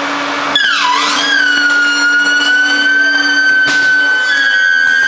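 Automatic edge banding machine running: a high-pitched whine starts about half a second in, dips in pitch, then holds steady over a low machine hum, with a single sharp click midway.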